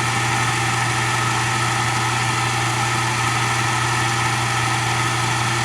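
Framon FRA-2D key code cutting machine's motor running with its cutter spinning, a steady even hum that does not change.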